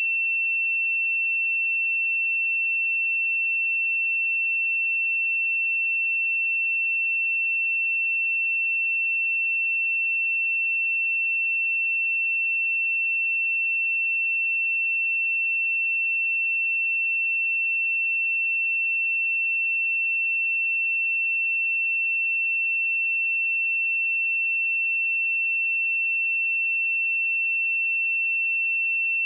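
A pure 2695 Hz sine-wave test tone, one steady high-pitched pitch held without change.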